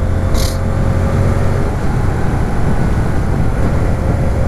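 Hyosung GT125's two-cylinder four-stroke engine running at a steady speed while riding, through an aftermarket Taconi silencer without its dB-killer. A short hiss about half a second in.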